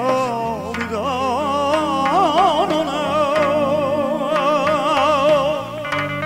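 Live band music: a melody held with strong vibrato over keyboard and frame drum accompaniment, the drum strokes coming back more sharply near the end.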